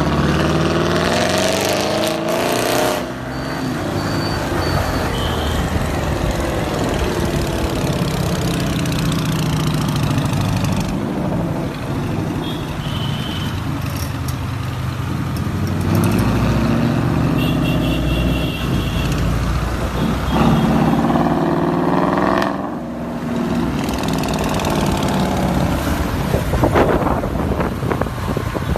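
Ford Mustang GT's V8 through an Armytrix headerback exhaust, accelerating and revving hard. The pitch climbs and falls back several times, with a sharp drop about three seconds in and again near two-thirds of the way through.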